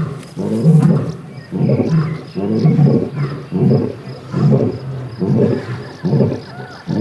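A lioness roaring: the closing series of short, deep grunts of a lion roar, repeated evenly about once a second, about eight times.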